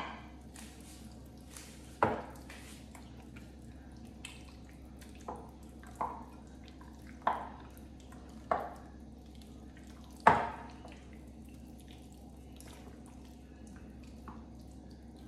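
Wet slaps and plops of hands squeezing and turning chicken drumsticks in a thick yogurt marinade in a glass bowl: about seven separate squelches a second or two apart, the loudest about ten seconds in, over a faint steady hum.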